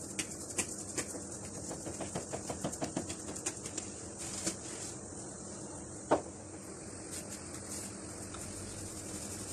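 Hands working soft yeast dough on a wooden board, a quick run of light taps and pats for the first few seconds, then one sharper knock about six seconds in, over a faint steady hiss.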